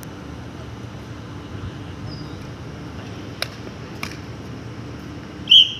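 Sharp pops of badminton rackets striking a shuttlecock, two of them about half a second apart a little past the middle, over a steady low background hum. Near the end comes a brief, loud, high-pitched sound.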